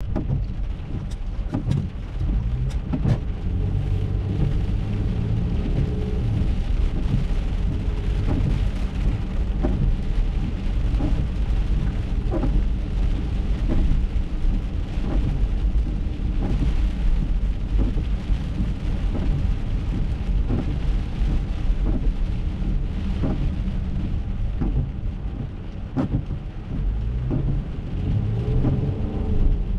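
Rain tapping on a car windshield in scattered sharp ticks, over the steady low rumble of an Acura MDX driving on a wet road, heard from inside the cabin.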